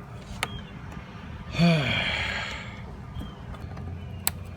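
A man's exasperated sigh: a brief voice sound falling in pitch, trailing into a breathy exhale of about a second. A few light clicks come shortly after the start and near the end.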